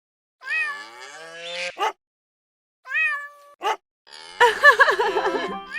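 Cat meowing in a cartoon: two drawn-out meows, each rising then falling and followed by a short clipped one, then a louder jumble of wavering meow-like calls from about four seconds in.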